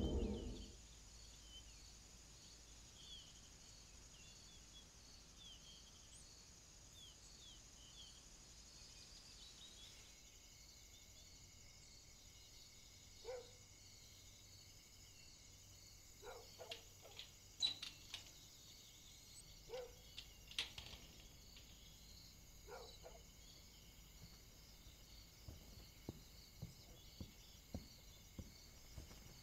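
Faint evening outdoor ambience: insects chirring steadily, with a few short bird chirps early on. Several brief louder calls or knocks come through the middle, and near the end there are soft, evenly spaced steps.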